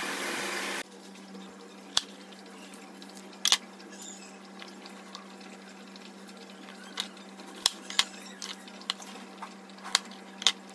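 Kitchen work sounds: a steady rush of running water that cuts off abruptly under a second in, then a quiet low hum with scattered sharp clicks and taps of utensils or drips.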